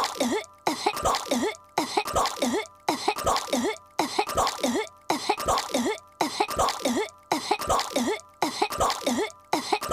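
A young girl's cartoon voice coughing and choking, as on a piece of chewing gum. The same cough-and-gasp repeats identically about once a second.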